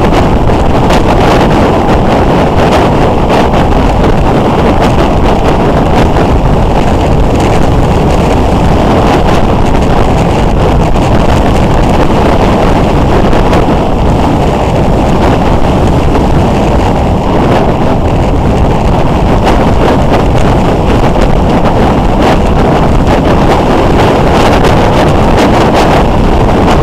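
Loud, steady wind rush on a motorcycle-mounted camera's microphone at riding speed, mixed with the motorcycle's engine and road noise.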